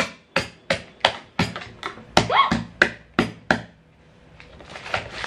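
About ten sharp knocks, roughly three a second, from a wooden pounder striking a bag of Marie biscuits and corn flakes on a table to crush them into crumbs. The knocking stops about three and a half seconds in. A brief rising voice sounds midway.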